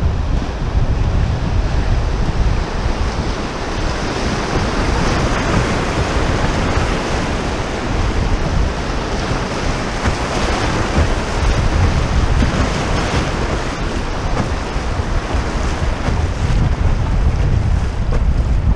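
Rushing river rapids, with whitewater waves splashing around a canoe's bow; the rush of water is strongest through the middle. Wind buffets the microphone as a low rumble throughout.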